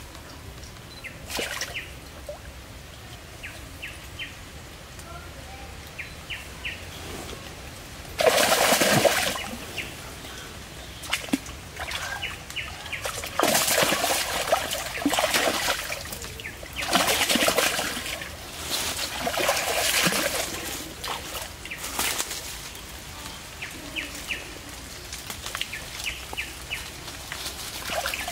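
Shallow stream water splashing and sloshing around a person wading, in several loud bursts separated by quieter stretches.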